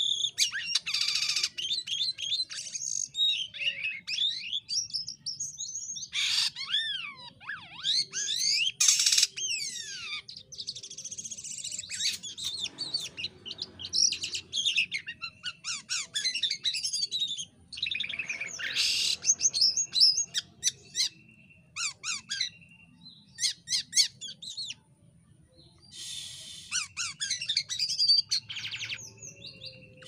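White-shouldered starling (jalak kapas) singing a varied song of whistles, sliding notes and rapid chattering phrases, with a short pause about three-quarters of the way through.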